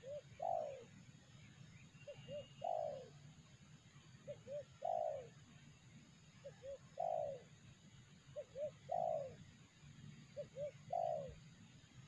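Spotted dove cooing: six repeated phrases about two seconds apart, each two short soft notes followed by a longer, louder coo that falls in pitch.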